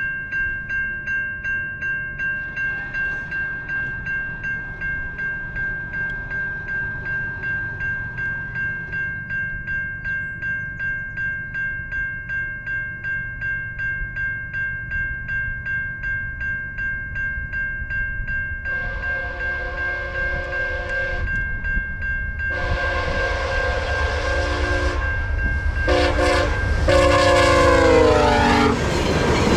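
Level-crossing bell ringing steadily at about two strokes a second as VIA Rail's Siemens Charger SC-44 locomotive approaches and sounds its horn in the grade-crossing pattern: long, long, short, long. The last long blast falls in pitch as the locomotive reaches the crossing, and the rumble of the passing train rises at the end.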